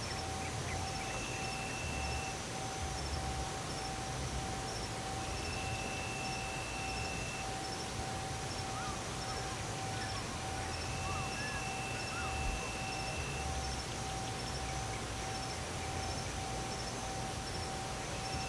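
Night insect chorus: crickets chirping in a rapid, even high pulse, over a steady low hum. A drawn-out higher trill starts and stops every few seconds.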